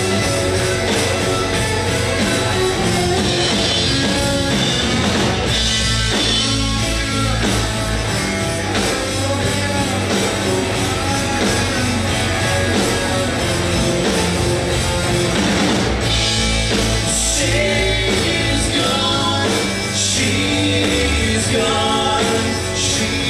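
Live rock band playing loud and without a break: electric guitars, bass guitar and drum kit.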